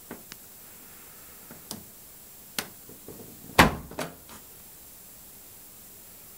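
Small clicks of a push button on a 1978 Candy 137 front-loading washing machine, then sharp knocks and a loud clunk a little over halfway through as the porthole door is unlatched and swung open, with a few lighter knocks after it.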